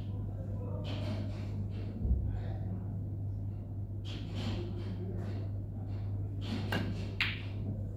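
A snooker shot: two sharp clicks about half a second apart near the end, the cue tip striking the cue ball and the ball knocking against another ball. Before it there is a steady low room hum, and a single dull thump about two seconds in.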